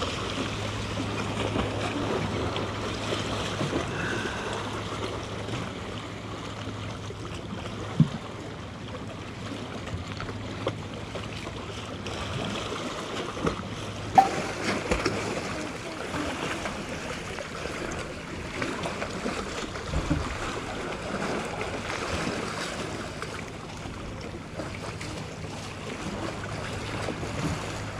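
Sea waves washing against the rocks of a seawall, with wind on the microphone and a low steady hum underneath. A few sharp clicks stand out, the loudest about fourteen seconds in.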